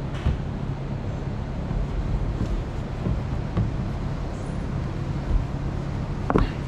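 A large cylindrical combine air filter element being pushed into its plastic housing: a few faint knocks and scrapes, the loudest near the end, over a steady low mechanical hum.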